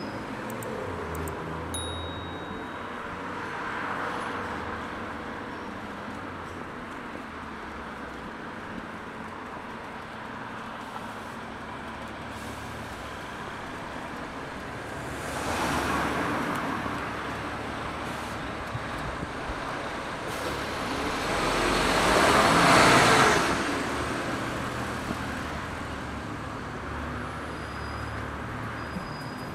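Town street ambience with steady background traffic noise, as cars pass close by: one about halfway through and a louder one about three-quarters of the way through.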